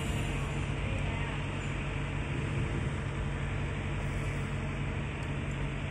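A steady low hum over a constant rushing noise, with no separate knocks or clicks.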